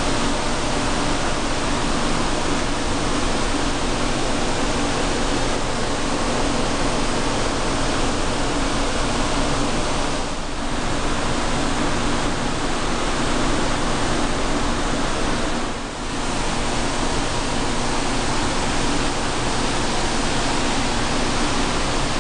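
Steady, even rushing noise with no distinct strokes or clicks, dipping briefly twice.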